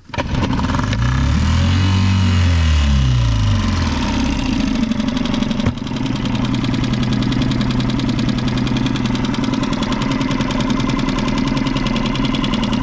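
Dinghy outboard motor running. It comes in suddenly, its pitch rising then falling back over the first few seconds, then settles to a steady drone.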